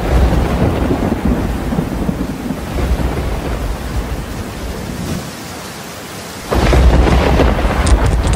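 Rain with low rumbling thunder, a dense steady wash of noise; the thunder swells suddenly louder about six and a half seconds in.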